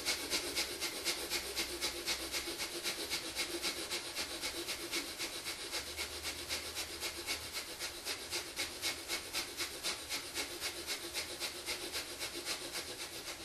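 Breath of fire: rapid, rhythmic, forceful breathing through the nose, about four breaths a second, kept up evenly.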